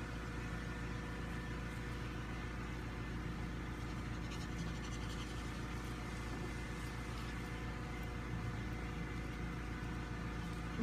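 A steady hum with several constant tones, with a few faint scratchy rustles around the middle.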